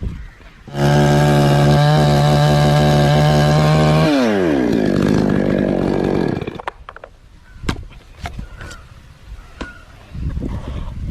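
Chainsaw comes in loud at a steady high pitch about a second in. A few seconds later its pitch drops and it runs rougher before falling away. A few sharp knocks follow, and a quieter engine sound starts again near the end.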